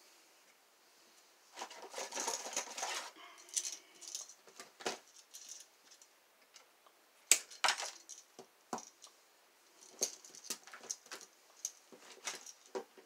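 Metal hand tools and electrical wire clicking and clattering while an outlet is wired: a short rattling stretch about a second and a half in, then scattered sharp clicks and snips, the loudest a little past halfway, and tools being rummaged in a box near the end.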